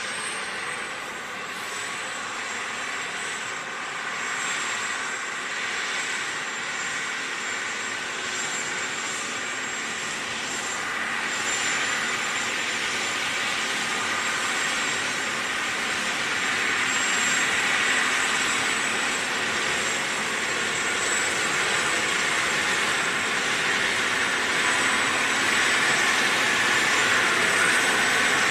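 Diesel engine of a John Deere 9630 four-wheel-drive tractor running as it pulls a scraper pan, growing steadily louder as it approaches, with a thin steady high whine over the engine noise.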